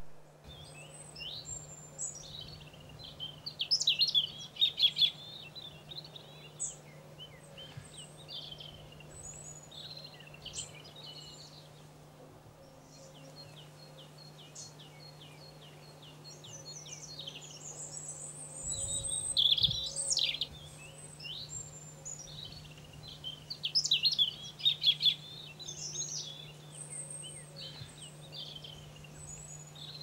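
Small songbirds chirping and calling in short high notes and trills, loudest about four seconds in, around twenty seconds and again around twenty-four seconds, with a quick even run of about six ticks a second near the middle. A low steady hum lies underneath.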